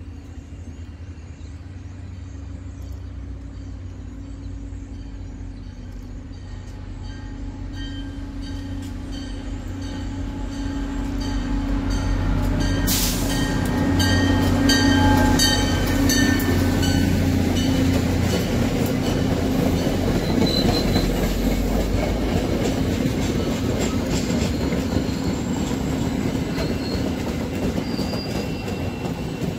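CTrail diesel-electric locomotive hauling a passenger train, its engine drone growing louder as it approaches and loudest as it passes, with a bell ringing steadily as it comes in. The coaches then roll by with wheels clacking over the rail joints.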